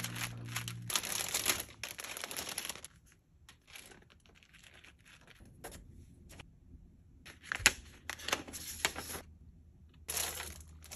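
Paper stationery and its packaging being handled: A4 notebook pages and card dividers rustling and packaging crinkling, in irregular bursts with quieter gaps. A sharp tap comes about two-thirds through, and a few sustained musical notes stop about a second in.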